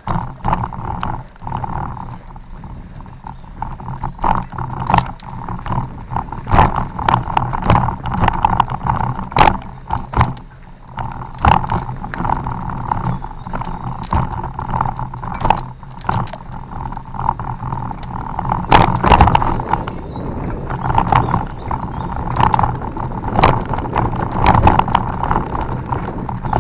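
Bicycle clattering and rattling over a rough off-road forest trail: many irregular sharp knocks from the frame and parts jolting over bumps, the heaviest cluster a little past the middle, over a steady rush of riding noise.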